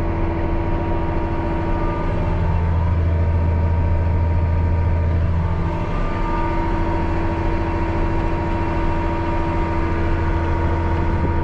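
John Deere 8930 tractor's diesel engine running at a steady speed while pulling a round baler, a loud even drone that swells slightly a couple of seconds in and then settles.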